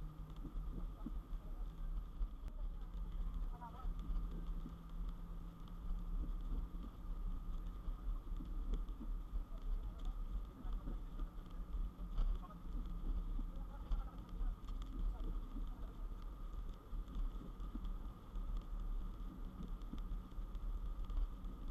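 Steady low rumble of a car driving on a wet highway, heard from inside the cabin.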